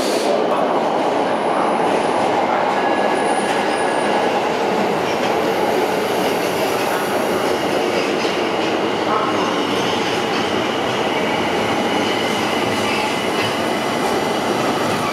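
Steady rumble of subway trains in an underground station, with a few thin high-pitched tones like wheel squeal through the middle.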